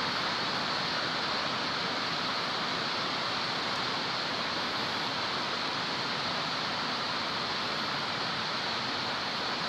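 Steady, even hiss of background noise, with no distinct clicks or scrapes.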